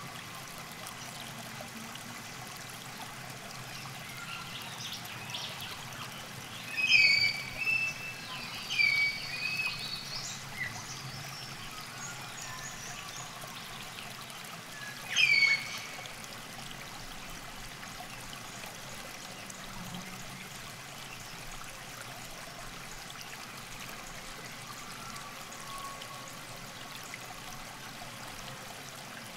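Steady trickle of flowing river water, with birds calling in a short cluster of chirps about a quarter of the way in and once more around the middle.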